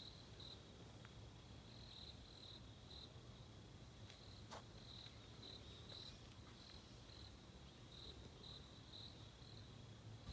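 Faint insects chirping in short, repeated pulses, about two a second, over a faint low hum.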